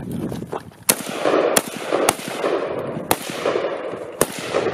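AKM rifles firing single shots: five sharp cracks spaced irregularly over a few seconds, with a rough, pulsing noise between them.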